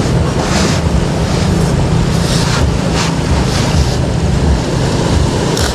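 Wind rumbling on the microphone over waves washing in, with a hiss that swells about once a second.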